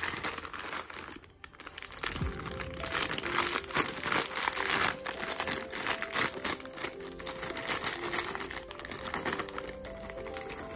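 Plastic snack packet crinkling and crackling as it is handled and pulled open by hand. Background music with a simple melody comes in about two seconds in.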